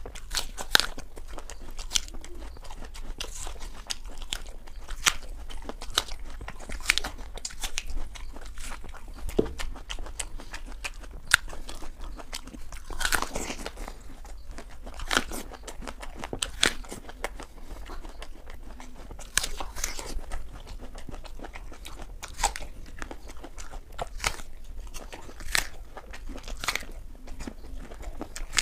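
Raw apples being bitten and chewed: crisp, irregular crunches every second or so, mouth-close.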